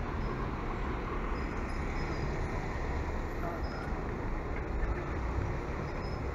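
Steady street traffic noise from passing cars and other road vehicles.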